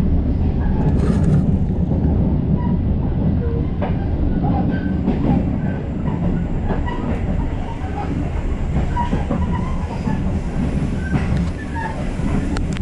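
Passenger train running along the track, heard from inside a coach: a steady low rumble of wheels on rails with scattered faint clicks.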